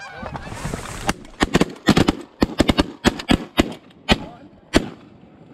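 Volley of shotgun fire from several goose hunters shooting at once: a dozen or more sharp shots in quick, irregular succession over about four seconds, starting about a second in.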